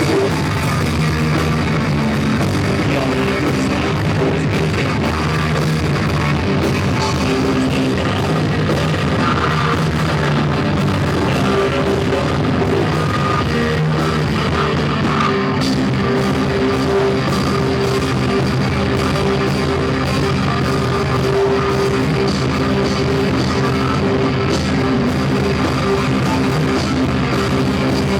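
Rock band playing live, guitar and drum kit, loud and unbroken, in a recording with bad sound.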